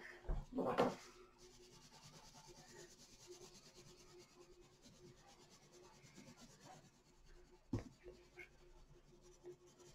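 A coloured pencil scratching and rubbing on paper as a picture is coloured in, faint and steady. A short louder sound comes in the first second, and there is a single sharp knock about three-quarters of the way through.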